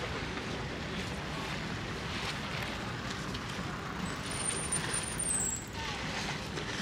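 Steady outdoor traffic noise, with a thin high squeal lasting about a second near the middle that dips in pitch as it ends.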